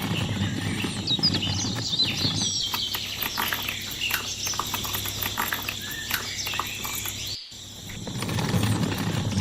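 Birds chirping outdoors over a low steady hum and scattered clicks and taps. The sound drops out for a moment about seven and a half seconds in, then comes back.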